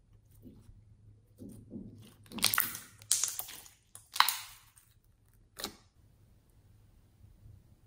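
Hands squeezing and kneading slime, putty slime mixed into store-bought slime, giving a run of short wet squishes and pops. They start about a second and a half in, are loudest around the middle, and stop near six seconds.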